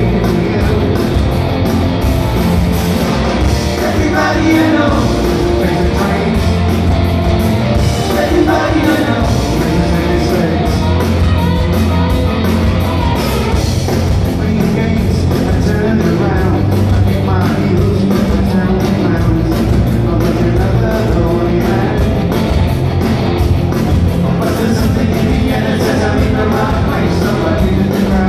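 A rock band playing live: electric guitars, bass guitar and drums at full volume, with a lead vocal sung over them.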